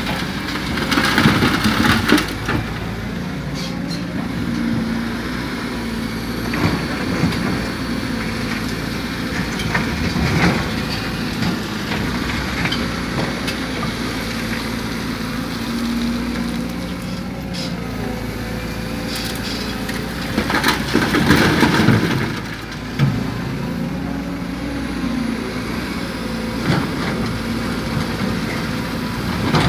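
Excavator's diesel engine running steadily under load, with two louder rushes of loose soil and rubble being dumped from the bucket into a dump truck's bed, one just after the start and one about two-thirds through.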